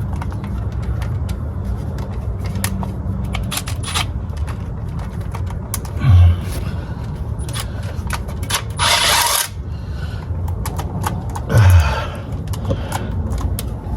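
Hand tools working on metal under a car: scattered small clicks and taps, with three louder rasping scrapes about 6, 9 and 12 seconds in, over a steady low hum.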